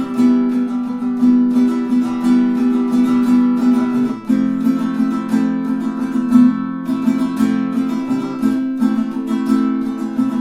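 Solid acacia Pono baritone ukulele being strummed and picked, ringing chords that change about every four seconds.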